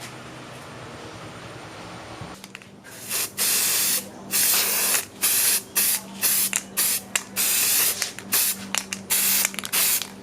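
Aerosol spray can being sprayed in a series of hissing bursts, the first few about a second long and the later ones shorter and quicker, starting about three seconds in.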